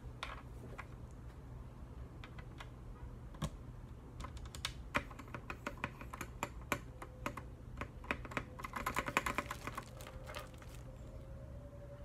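Mechanical keyboard switches, Gateron Milky Yellow linears in a GK64X board, clacking as they are pushed in and pressed by hand. The clicks are scattered at first, become a dense run, peak in a quick flurry about nine seconds in, then stop.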